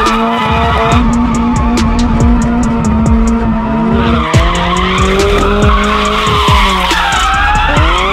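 First-generation Mazda Miata drift car sliding through a corner: its four-cylinder engine revs up and down while the rear tyres squeal and skid. The sound changes abruptly twice.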